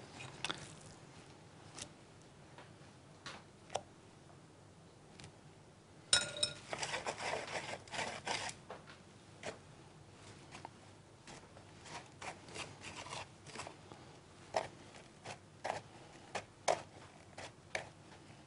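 Quiet kitchen handling sounds as meat is dipped in egg and pressed into breadcrumbs: scattered small clicks, rubs and scrapes, with a brief clink about six seconds in and a denser run of rustling and clicking after it.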